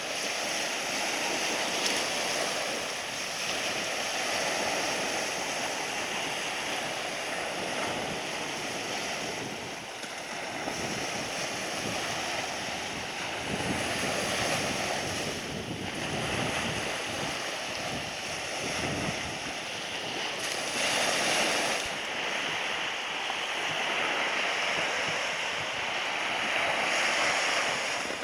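Surf breaking and washing up a sandy beach, swelling and easing every few seconds, with wind noise on the microphone.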